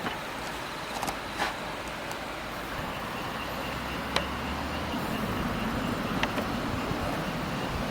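Steady background noise like passing road traffic, with a low hum in the middle and a few light clicks and knocks.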